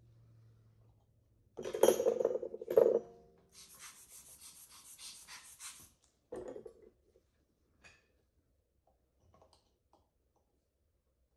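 Metal dental hand instruments scraping and knocking against the gypsum and plastic of a dental practice model: a cluster of loud scrapes about two seconds in, a stretch of even hiss, another scrape a little past the middle, then a few faint clicks.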